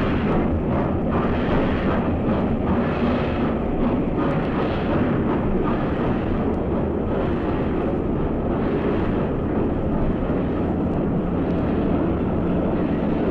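Steam locomotive running close by: a loud, steady, dense rumble.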